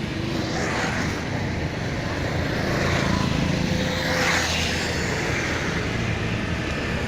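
Road traffic: continuous engine hum and tyre noise, with vehicles swelling past about one, three and four seconds in.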